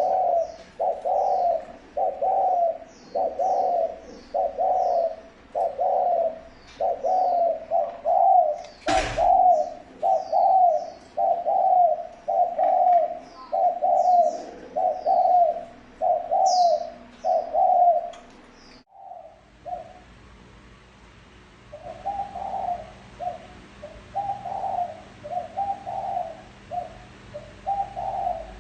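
Spotted dove giving its repeated 'gù' coo, the call used to lure wild doves: a steady run of short, low coos, about one and a half a second, with a small bird chirping high above. There is a sharp click about a third of the way in. The cooing breaks off about two-thirds through and resumes more quietly a couple of seconds later.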